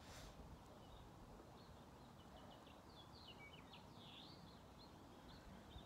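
Near silence outdoors with faint bird chirps: a scatter of short high calls and one quick down-and-up whistle in the middle.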